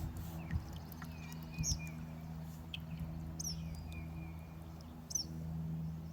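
Small birds chirping: short, high, quick calls repeated every second or two, with a few lower whistled notes between them.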